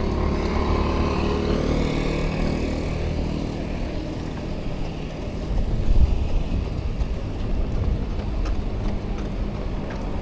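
A motor vehicle's engine going by, its hum clear for about three seconds and then fading into a steady low traffic rumble. A low thump comes about six seconds in.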